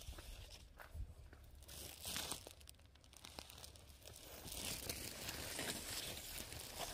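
Dry cornstalks and husks rustling and crackling as ears of corn are picked by hand. Several sharp snaps and tearing sounds come in the first couple of seconds, and the crackle grows denser in the second half.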